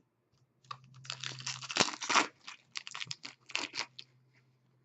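A trading card pack wrapper being torn open and crinkled: a burst of ripping and crackling for about three seconds, loudest in the first half, then a few crinkles as it is pulled apart.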